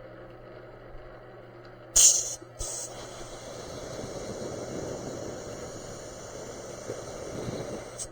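Spray gun hissing as it sprays Cerakote ceramic coating: a short sharp blast of air about two seconds in, a second brief one, then steady spraying.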